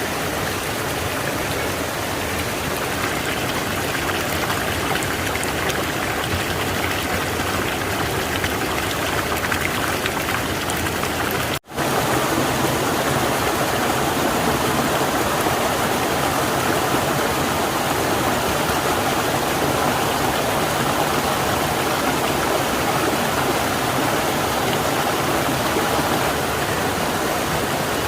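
Rushing water of a river or waterfall: a steady, loud rush. It breaks off for an instant about twelve seconds in.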